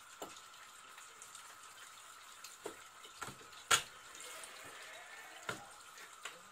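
Kitchen knife knocking against a wooden cutting board as a fish is cut up: a handful of short, sharp knocks. The loudest, a little under four seconds in, is the blade chopping through the largescale blackfish's tail onto the board. Under it runs a faint steady hum.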